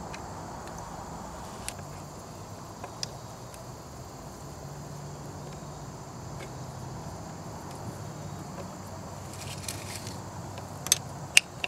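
Steady chirring of insects over a faint low hum, broken by a few sharp clicks; the two loudest clicks come close together near the end.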